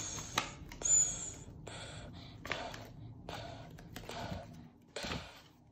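A person making a series of short, breathy vocal sounds, about one a second, with a brief high squeak about a second in.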